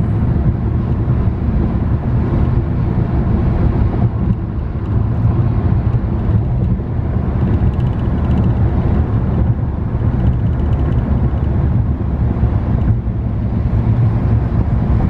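Car driving at freeway speed, heard from inside: a steady low rumble of road and engine noise that holds even throughout.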